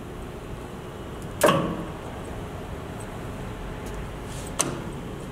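Two metal clunks from the headstock control levers of an Acer 1440V lathe being shifted: a loud one about one and a half seconds in that rings briefly, and a lighter one near the end, over a steady hum.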